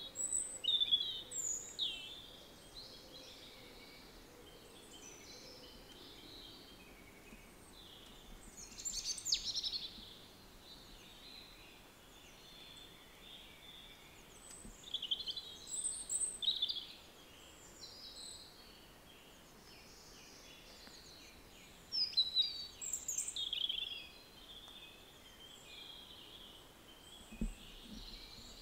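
Small birds chirping and calling in short clusters every several seconds, over a faint steady hiss, with a short low thump near the end.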